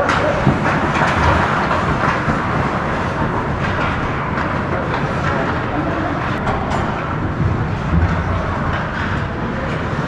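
Hockey rink game noise: a steady rumbling, hissing wash of skates and play, with a few faint sharp clicks about halfway through and a brief thump near the end.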